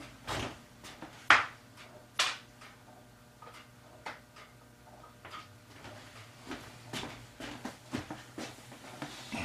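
Small metal tools being handled at a clockmaker's bench: scattered light clicks and taps, the two sharpest just over a second in and about a second after that, over a faint steady low hum.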